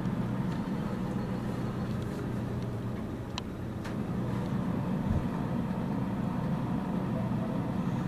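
Steady low rumble of a running vehicle engine, with one brief sharp high click about three and a half seconds in.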